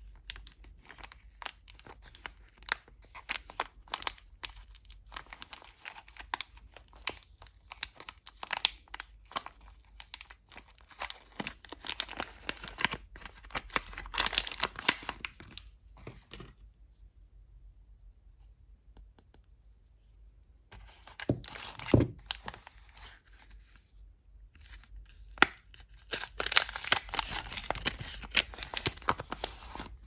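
Paper soap wrappers being torn open and unfolded by hand, crinkling and rustling in busy bursts. A quieter lull falls past the middle, broken by a soft knock, before more wrapper crinkling near the end.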